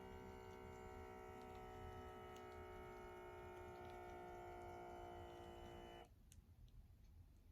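LifeSource automatic blood pressure monitor's small air pump buzzing steadily as it inflates the arm cuff, then cutting off suddenly about six seconds in.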